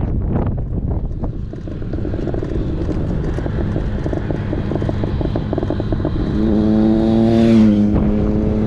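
Wind buffeting the microphone with a fluttering rumble. About six and a half seconds in, a motor vehicle comes up and passes, its engine note dipping slightly in pitch as it goes by.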